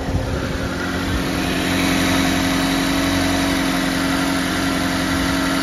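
Chevy Equinox 2.4-litre four-cylinder engine idling steadily with a newly fitted serpentine belt running on its pulleys, with a constant hum over the idle.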